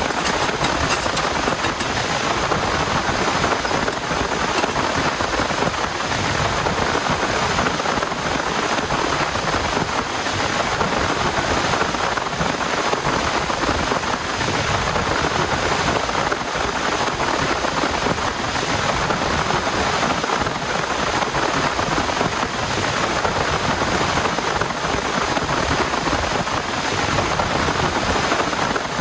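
Heavy rain pouring steadily, an even dense hiss with no let-up.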